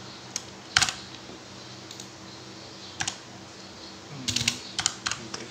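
A few scattered keystrokes on a computer keyboard: a loud one about a second in, another at about three seconds, and a quick run of keys near the end, over a faint low steady hum.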